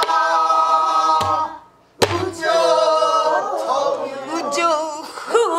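Pansori singing in jungmori rhythm: a long, wavering held note, a short break, then the line resumes. Strokes on a buk barrel drum mark the beat, about a second and two seconds in.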